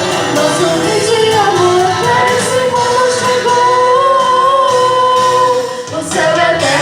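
Singing voices in a cantata song with musical accompaniment, holding long, wavering notes, with a brief break about six seconds in.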